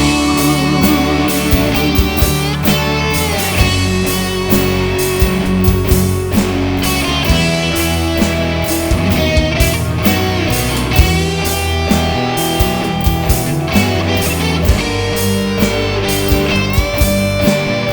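Rock song in an instrumental passage without vocals: electric guitar plays held, bending lead lines over bass and drums.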